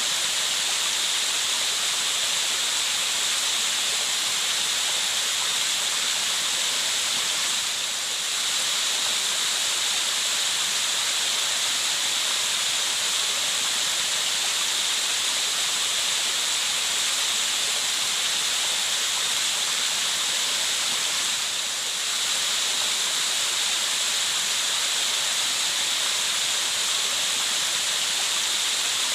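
Steady, even white noise like rushing water, strongest in the high hiss, with two brief dips in level, about 8 and 22 seconds in.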